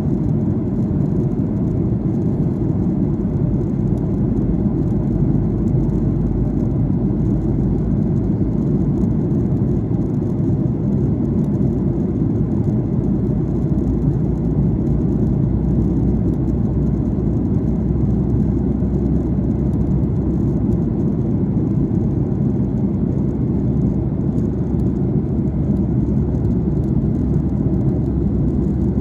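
Steady low rumble of cabin noise inside an airliner in descent, from its engines and the air rushing over the fuselage.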